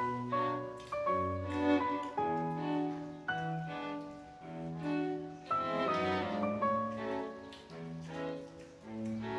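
Background instrumental music with held, overlapping notes that change about every half second to second.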